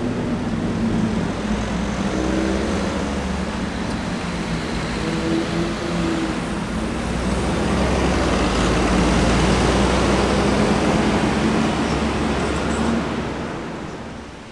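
Street traffic with a double-decker city bus driving close past: engine hum and a rushing road noise swell to their loudest past the middle, then fade out near the end.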